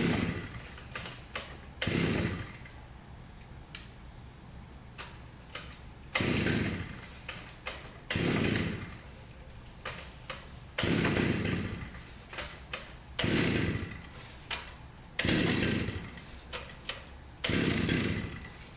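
A grass cutter's small engine being pull-started over and over, about eight pulls. Each one is a brief crank that falls away without the engine catching, with small clicks in between. The engine may be flooded with fuel.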